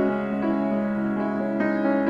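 Solo piano music. Chords are held, and new notes come in about half a second and about one and a half seconds in.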